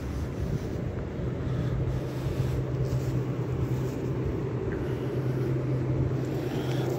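Steady low mechanical hum that grows louder about two seconds in and then holds steady.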